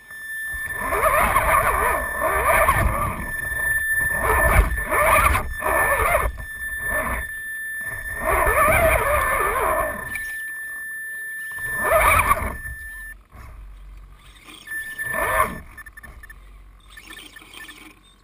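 RC rock crawler's motor and geared drivetrain whining in repeated bursts as throttle is applied, over a steady high whine. The bursts die down after about two thirds of the way in.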